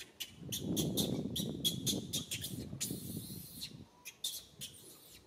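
Small birds chirping rapidly in short, high notes, several a second. A low rumble runs underneath from about half a second in and fades out after about three seconds.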